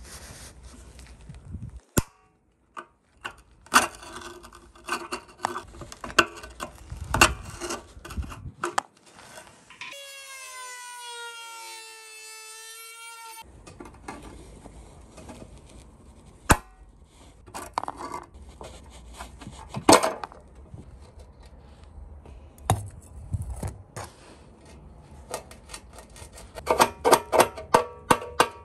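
Flat screwdriver scraping and prying at rusted screws on the steel badge plate of a JAWA motorcycle fuel tank: a run of sharp metal clicks, knocks and scrapes. A wavering squeal lasts about three seconds midway, and a quick burst of ringing taps comes near the end.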